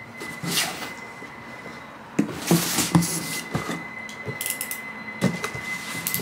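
Cardboard parcel boxes being handled: several knocks and thuds as boxes are moved and set down, with short rustles of packing paper from hands working inside a box.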